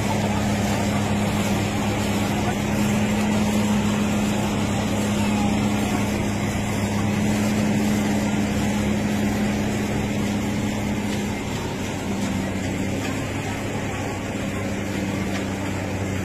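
Tractor diesel engine running steadily under load with a low hum, easing slightly in pitch about twelve seconds in.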